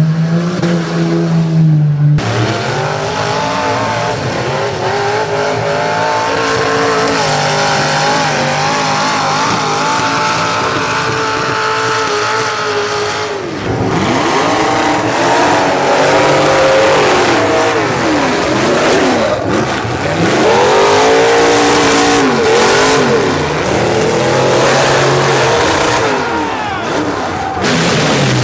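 Several demolition derby cars' engines revving hard, pitch rising and falling over and over as they accelerate and back off in the dirt arena. The engine sound changes abruptly a couple of times.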